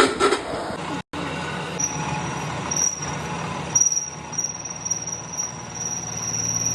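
Mechanical power hammer running, a steady high-pitched squeal over a low hum, with no heavy blows standing out. The sound drops out for an instant about a second in.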